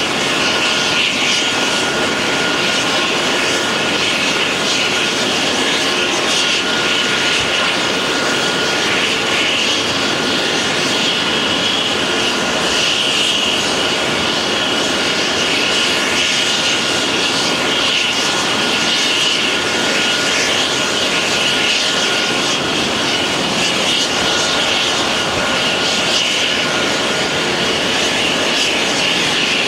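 Aircraft turbine engines running at idle: a steady rush with a high whine held at one pitch.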